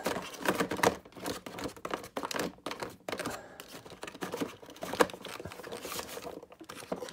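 Plastic twist dial on a Capsule Chix cardboard capsule-dispenser box being turned back and forth, giving irregular clicks and rattles with cardboard crinkling as it works a stuck capsule loose, with one sharper click about five seconds in.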